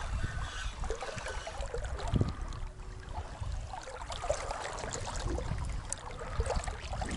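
River water flowing and trickling, with a steady low rumble.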